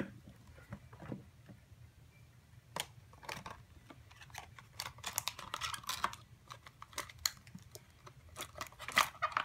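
Rustling and clicking of plastic toy packaging and small plastic accessories being handled and unpacked, sparse at first and busier from about three seconds in.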